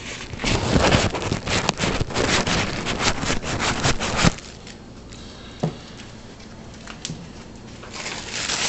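Basset hound mouthing and slobbering on a handheld camera: loud crackling, scraping and knocking right against the microphone for about four seconds, cutting off suddenly, followed by a single thump a little later.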